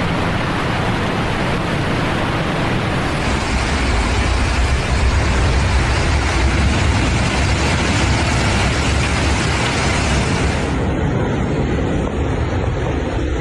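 Loud, continuous storm noise of wind and rushing, crashing water, with a heavy low rumble of wind buffeting the microphone. The sound changes abruptly about three seconds in and again near the end.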